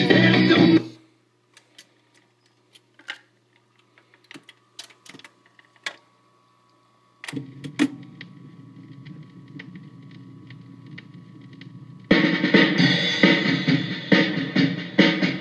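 1953 RCA Victor 3-HES-5 45 rpm record changer cycling between records: the music stops about a second in, then a few seconds of scattered mechanism clicks and clunks as the next record drops and the tonearm sets down. Steady surface noise from the groove follows from about seven seconds, and the next song with drums starts loud through the player's speaker about twelve seconds in.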